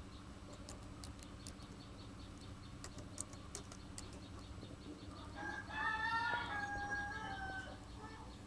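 A single drawn-out animal call of about two and a half seconds, starting about five seconds in, over a steady low hum. A few faint clicks come before it.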